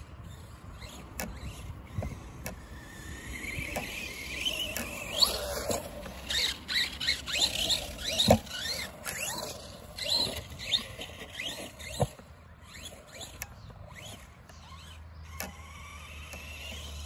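Electric RC monster truck (Arrma Big Rock) driving on grass, its motor whine rising and falling with the throttle. Several sharp knocks come as it hits bumps and lands, the loudest about halfway through.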